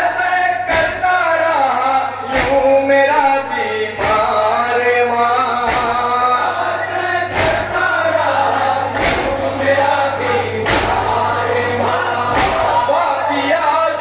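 A group of men chanting a nauha, a mourning lament, through a loudspeaker system. About every second and a half to two seconds comes a sharp collective slap: matam, chest-beating in time with the lament. A low electrical hum runs underneath.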